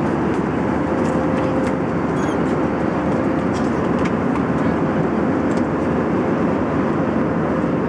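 Steady roar of an airliner cabin in flight: engine and rushing-air noise with a faint constant hum.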